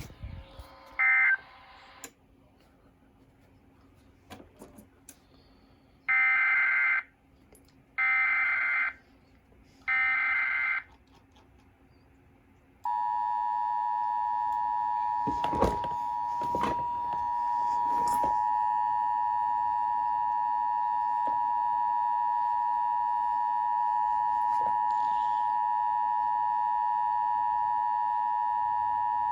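EAS decoder sending three SAME digital header bursts, each under a second long and evenly spaced, then the steady two-tone EAS attention signal. The attention signal keeps going, which the owner takes for his TFT EAS unit having crashed. A few clicks sound over the tone shortly after it starts.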